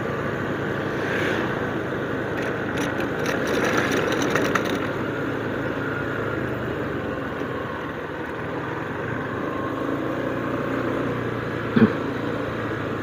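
Motorcycle engine running steadily at low cruising speed, with wind and road noise heard from on the bike. A few light clicks or rattles come about three to four and a half seconds in.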